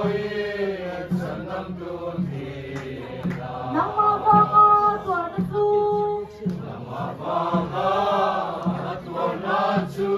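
A roomful of men and women singing a hymn together in unison, over a steady low drumbeat about twice a second.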